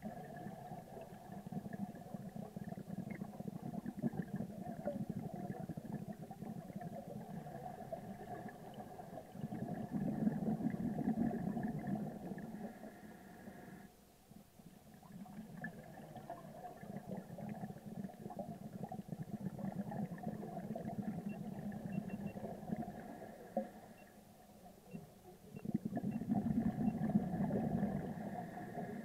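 Underwater rumble with a steady hum running through it, dropping away briefly twice.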